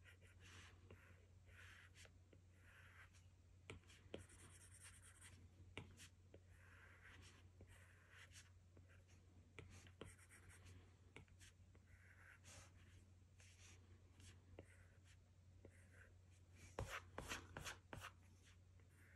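Faint scratching and light tapping of an Apple Pencil tip drawing short strokes on an iPad Pro's glass screen, with a denser run of quick strokes near the end. A low steady hum lies underneath.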